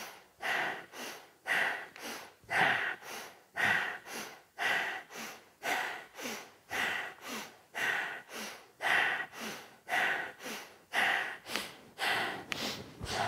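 Forceful rhythmic yoga breathing, a louder and a softer breath in turn, about two breaths a second without a break.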